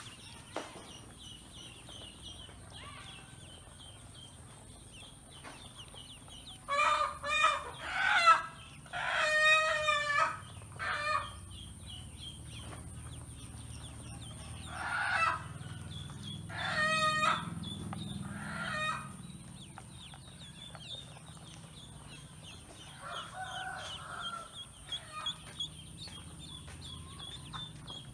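Ducklings peeping in a steady run of small high chirps. Chickens call over them, with a rooster crowing and clucking, loudest from about seven to eleven seconds in and again from about fifteen to nineteen seconds in.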